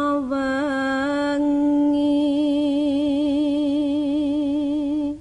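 A solo voice sings a slow Javanese song without accompaniment. A few ornamented notes lead into one long held note with a slow, even vibrato, which breaks off at the end.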